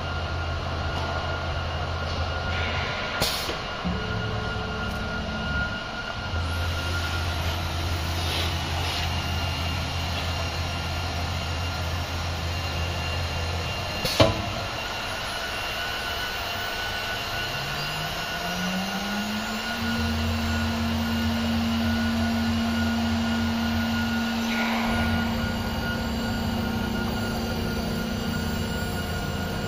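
Acctek AKM1325C automatic-tool-change CNC router running: a steady motor whine over a low hum that cuts in and out as the axes move. There are two sharp clicks, the louder one about 14 seconds in. Around 18 seconds a rising tone levels off and holds as the spindle comes up to speed.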